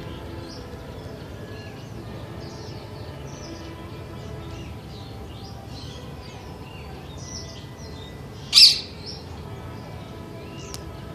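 Birds chirping and twittering throughout, with one loud, short, shrill screech about eight and a half seconds in, from a parakeet.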